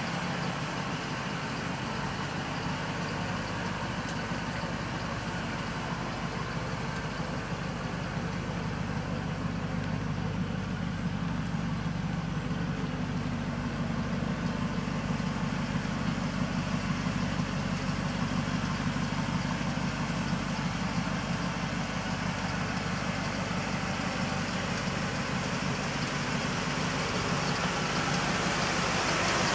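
Supercharged 5.4-litre Triton V8 of a 1999 Ford F-150 SVT Lightning idling steadily through a Magnaflow exhaust, growing a little louder in the second half.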